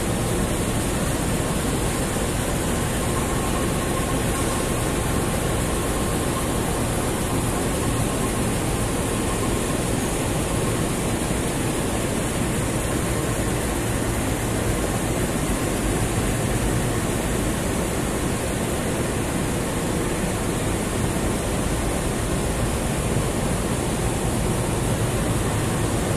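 Steady, even rushing noise with a faint low hum underneath, unchanging throughout: railway platform ambience under a large station roof.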